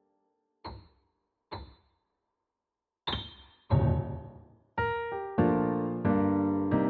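Solo keyboard with a piano sound playing a medley of holiday songs: after a pause, two short notes about a second apart, then a gap, and from about three seconds in the chords come back at a steady beat, the loudest a low chord near four seconds in.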